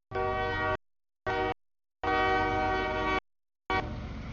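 CSX freight locomotive's air horn sounding its warning for the grade crossing, heard in three pieces with dead-silent gaps between them, the longest about a second. Shortly before the end the horn stops and the steady rumble of the passing auto-rack train takes over.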